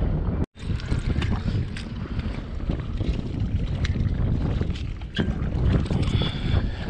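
Wind buffeting the microphone on an open boat on the water: a steady low rumble with no engine tone. The sound cuts out completely for a moment about half a second in.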